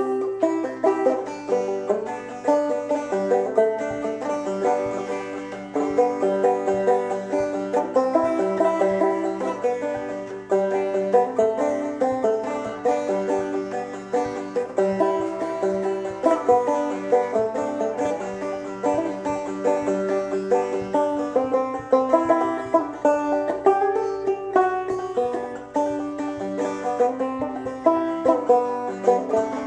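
Banjo played clawhammer (frailing) style, a steady, unbroken run of plucked notes and brushed strums of an old-time tune.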